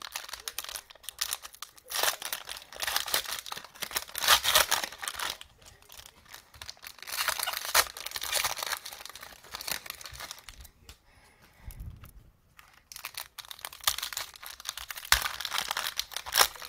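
Plastic cello-pack wrappers of Mosaic trading cards crinkling and tearing as packs are ripped open and cards handled, in irregular runs with a short lull a little past the middle.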